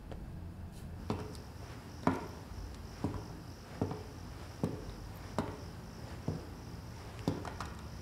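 A man's footsteps walking at a steady, unhurried pace, about one step every three-quarters of a second, starting about a second in, over a faint steady hiss.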